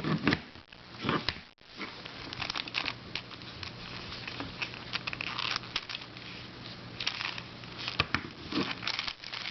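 Hands handling a plastic twisty puzzle, making irregular light clicks and rustling, over a faint steady hum.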